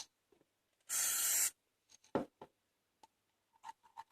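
One short hiss from a spray bottle, about a second in, followed by a single knock about a second later.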